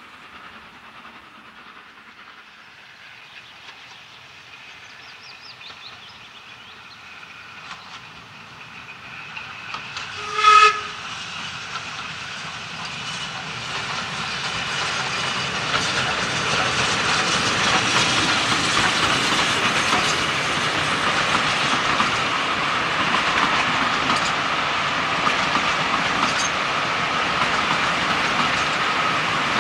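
Steam-hauled passenger train, faint and receding. About ten seconds in a steam locomotive whistle gives one short blast. Then another steam train approaches and passes close by, its running noise building up and staying loud.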